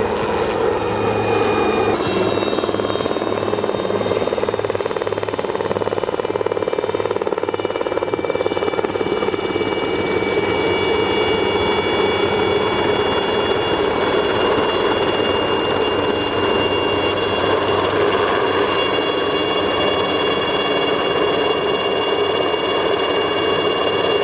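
Aérospatiale Alouette III helicopter hovering close overhead: the high whine of its turbine engine over the rotor noise. The whine steps up in pitch about two seconds in, then holds steady.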